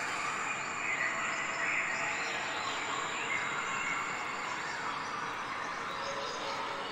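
Steady outdoor background noise with faint, short chirps over it.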